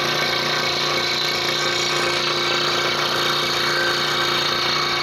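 Scroll saw running steadily with a constant hum, its blade cutting through a wooden jigsaw puzzle.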